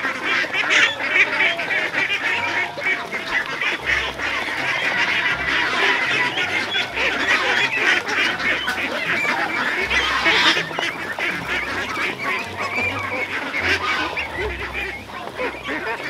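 A large flock of domestic ducks feeding together, calling and chattering continuously, with a dense rapid clatter of bills pecking feed off corrugated metal sheets.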